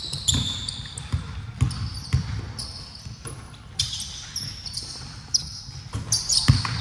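Basketballs thudding on a hardwood court at irregular moments, and sneakers squeaking in short high chirps on the floor, with the reverberation of a large gym hall.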